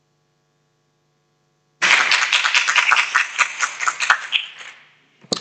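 Audience applauding. It starts suddenly about two seconds in, after a near-silent pause with only a faint mains hum, and dies away over the next three seconds.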